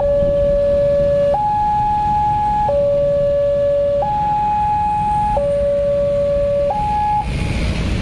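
Electronic railway level-crossing warning alarm alternating between a low and a higher tone, each held about 1.3 seconds, still sounding after the train has cleared and stopping about seven seconds in. Motorcycle and car engines run underneath as traffic crosses.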